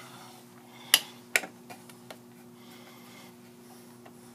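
A light switch clicked twice, sharply, about half a second apart, about a second in, followed by a couple of faint ticks, over a steady low hum.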